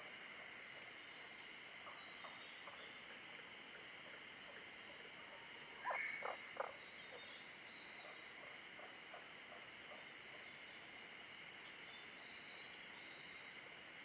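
Frogs calling: a quick run of about four loud croaks about six seconds in, with fainter croaks scattered before and after. Under them is a steady high-pitched chorus and faint, high birdsong.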